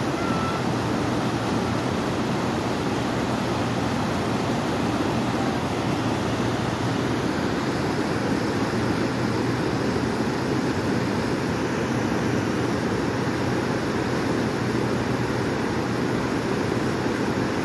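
Swollen, muddy floodwater rushing over rocks in a fast mountain river: a loud, steady rushing noise with no break.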